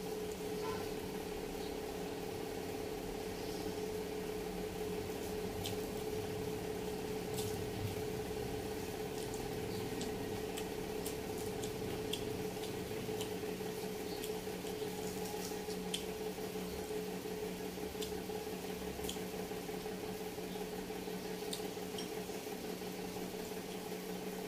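Soft wet chewing and scattered small clicks of sea grapes (lato) being eaten by hand, over a steady low electrical hum.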